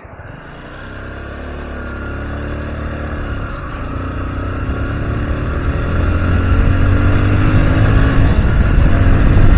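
Motorcycle engine running under way, with a heavy wind rumble that grows steadily louder as the bike picks up speed.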